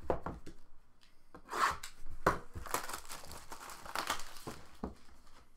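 Plastic shrink-wrap crinkling and tearing, with rustles and a few sharp taps, as hands handle and open a sealed box of trading cards.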